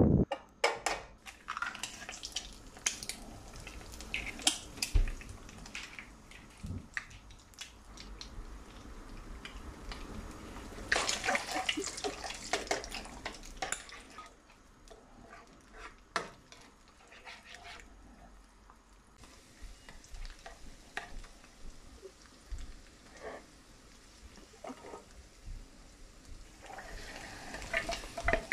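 Eggs sizzling in hot oil in a nonstick wok while a spatula scrapes and knocks against the pan, stirring and scrambling them, with a louder stretch of sizzling about halfway through. Near the end, vegetables are tipped from a plate into the pan with a clatter.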